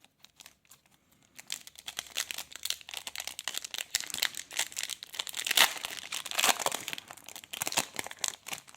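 Plastic trading card pack wrapper being torn open and crinkled: a dense crackling that starts about a second and a half in and is loudest in the middle.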